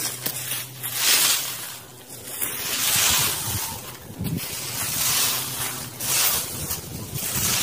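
A long-handled rake scraping and rustling dry leaves and twigs over dry ground, in repeated strokes every second or two.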